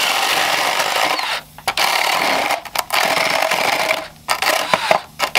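Cordless drill boring a large bit through a rigid foam skull to open up the jaw from under the chin. The drill runs in four or five bursts, each stopped briefly before it starts again.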